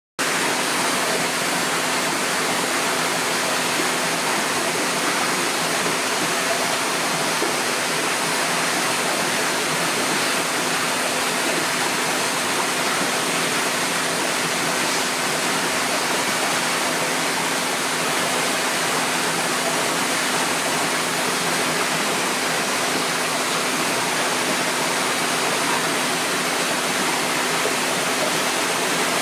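Steady rush of running water, even and unbroken, with a faint steady hum underneath.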